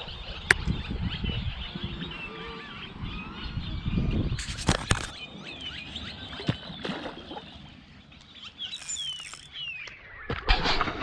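Many small birds chirping and calling at once in a steady chorus of short chirps, with a few sharp knocks scattered through it.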